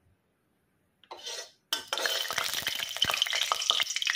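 Hot mustard oil sizzling in an aluminium kadai, starting suddenly about a second and a half in, with a metal spoon scraping and clinking against the pan as the oil is spread around it.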